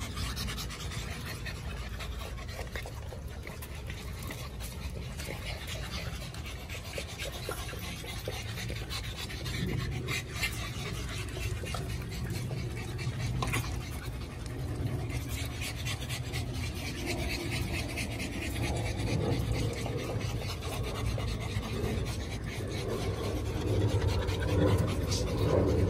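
American bully puppies panting steadily. A low hum builds and grows louder over the last several seconds.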